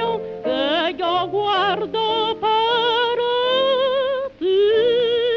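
Old late-1920s recording of a woman singing a Cuban zarzuela song with orchestra, on held notes with a wide vibrato. The voice breaks off for a moment about four seconds in, then holds one long high note. The sound is thin and narrow, with no top end.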